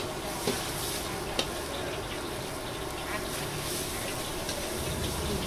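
Food sizzling in a hot wok over a gas burner, with two sharp metal clinks of a utensil against the pan in the first second and a half.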